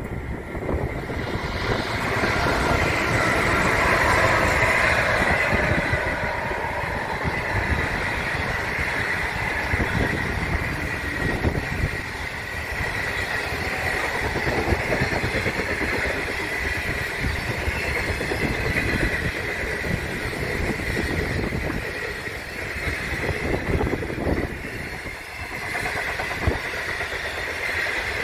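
Long passenger train passing at speed: a diesel locomotive goes by, loudest about four seconds in, then a long line of stainless-steel carriages rolls past. There is a continuous rumble of wheels on rail with irregular clatter and a steady high ringing tone.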